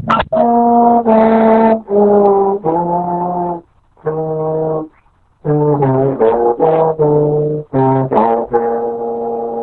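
Trombone playing a series of held and detached notes in short phrases, with brief breaks between them, heard through a video call.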